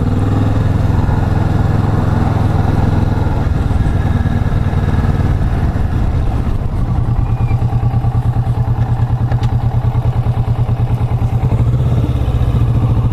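Kawasaki Vulcan S motorcycle's parallel-twin engine running at low revs, with an even, fast pulsing beat for several seconds in the middle.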